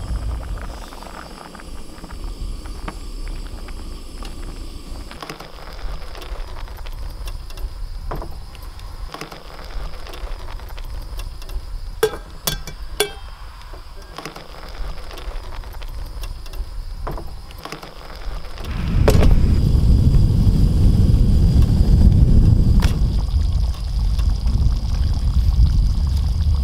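Outdoor camp-stove cooking: low rumbling background with a few sharp clicks of utensils around the middle, then a much louder low rumble of wind buffeting the microphone from about two-thirds of the way in.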